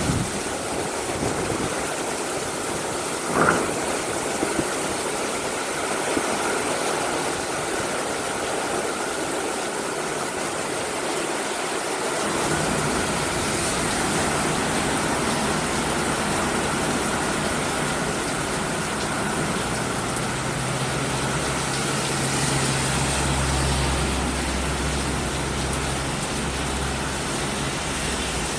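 Heavy rain pouring steadily in a downpour, with a short knock about three and a half seconds in. From about twelve seconds in, a low steady engine hum joins, louder between about twenty and twenty-seven seconds.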